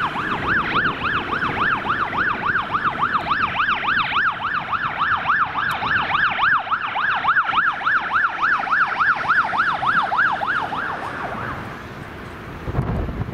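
Fire truck siren on yelp, a fast rising-and-falling wail repeating about three and a half times a second, stopping about eleven seconds in.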